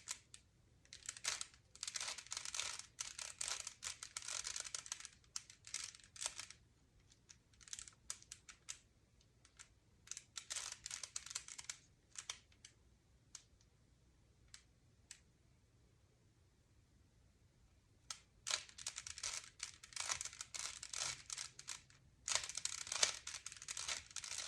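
Plastic Rubik's Cube being twisted by hand: flurries of quick clicking and rasping as the layers turn, with a pause of a few seconds past the middle.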